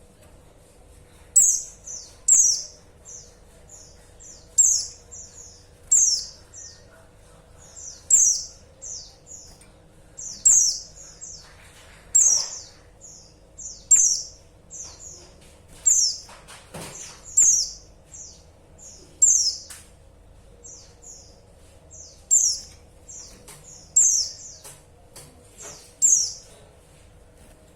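Female white-eye (pleci) calling: short, high, falling chirps repeated in clusters every couple of seconds, each cluster a loud note followed by a few fainter ones.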